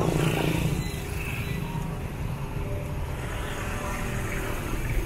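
Street ambience dominated by a steady low hum of road traffic engines.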